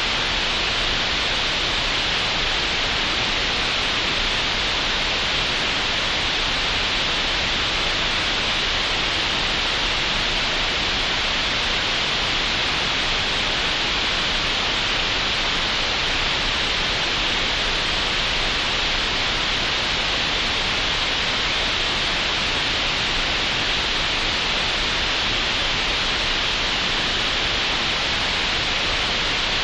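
Computer-generated green noise: a steady, even hiss with no changes or events, strongest in the upper middle of the range.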